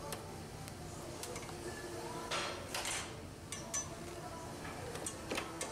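Scattered light clicks and short plastic scrapes as push-pin fasteners are popped out and the plastic cowl panel is worked loose, with two brief scraping rustles a little over two seconds in.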